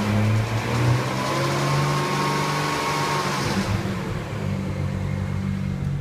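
BMW N54 twin-turbo straight-six running on a cold start, with the knocking, ticking rattle that the owner puts down to a chirping drive belt. A higher hiss over the engine drops away about two-thirds of the way in.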